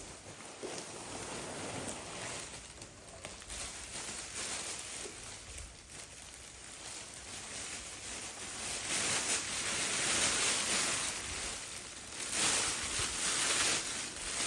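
Rustling and crinkling of packaging and seat-cover material being handled while the seat covers are unpacked. It grows louder about two-thirds of the way through.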